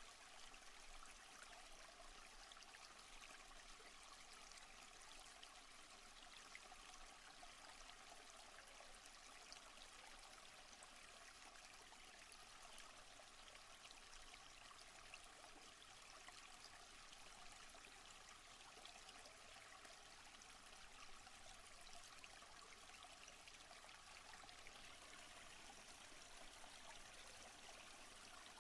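Faint, steady rush of flowing water from the stream below, with no other sounds standing out.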